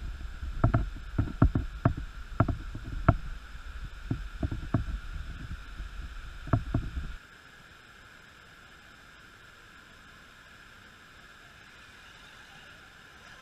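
A run of sharp knocks and clicks over a low rumble, cutting off suddenly about seven seconds in. After that only a faint steady hiss remains.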